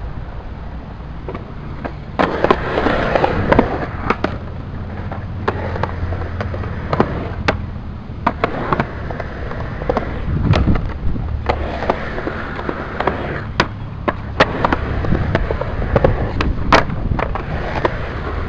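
Skateboard wheels rolling on concrete, with a dozen or so sharp clacks of the board hitting the ground spread through.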